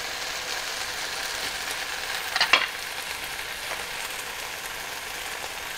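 Chicken pieces sizzling in a hot nonstick frying pan, a steady frying hiss, with one brief sharp clink about halfway through.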